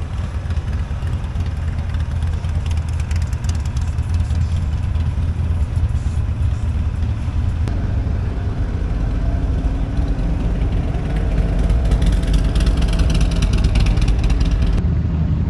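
Motorcycle engines running, a steady low rumble that grows louder in the second half.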